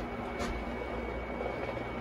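Steady low electrical hum under a hiss, with a thin high whine, and one faint click about half a second in.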